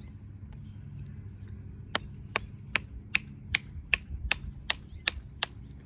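About ten sharp, evenly spaced taps, roughly two and a half a second, starting about two seconds in. An oversized lead ball is being tapped down into the muzzle of a .54 calibre flintlock pistol, a ball too big for the barrel to take easily.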